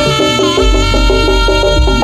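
East Javanese jaranan gamelan music played live: a quick run of stepping melodic notes over steady drumming.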